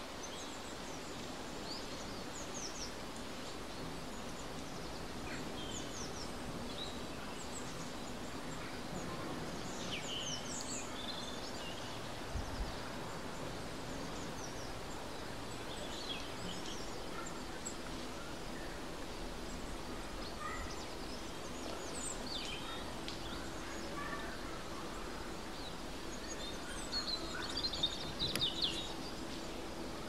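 Outdoor ambience: scattered bird chirps and calls over a steady background noise with a faint low hum, with a louder flurry of chirps near the end.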